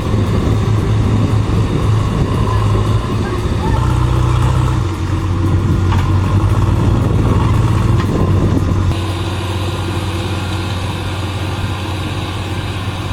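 Heavy machinery engines running steadily with a low hum, the sound changing abruptly a few times.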